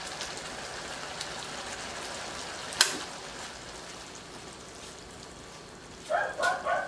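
Sweet-and-sour escabeche sauce around fried grouper sizzling and bubbling gently in a hot wok, a steady fine crackle. A single sharp click comes about three seconds in, and near the end three short vocal sounds are the loudest thing heard.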